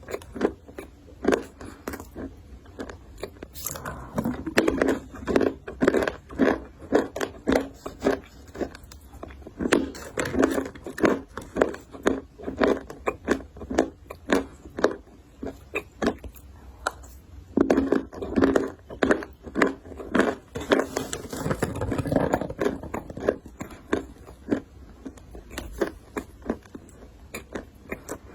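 Close-up mouth sounds of biting and chewing something crunchy, a rapid run of sharp crackles several times a second over the wetter sound of chewing.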